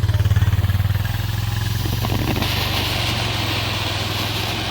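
An engine idling with an even, low throb; a steady hiss comes in about halfway through.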